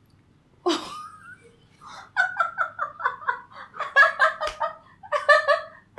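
A man and a woman laughing hard together in quick, repeated bursts, starting about two seconds in.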